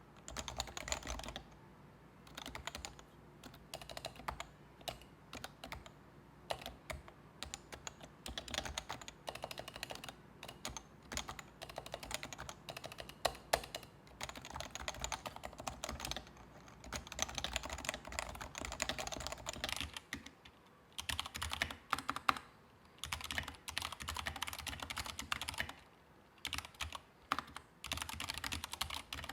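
Typing on a Leopold FC660C with Topre electro-capacitive switches, lubed stabilisers and PBT keycaps. About twenty seconds in, after a short pause, it changes to typing on an Anne Pro 2 mechanical keyboard with lubed stabilisers and chalk PBT keycaps.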